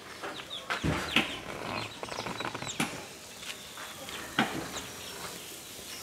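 A wooden cooking stick knocking and scraping a few times against an empty aluminium pot, with faint animal calls in the background.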